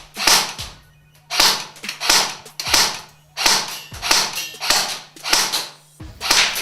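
SRC M4 Gen 3 airsoft electric gun (AEG) firing in single-shot mode, its electric gearbox cycling with each shot. About ten shots go off in a steady rhythm, roughly one every two-thirds of a second.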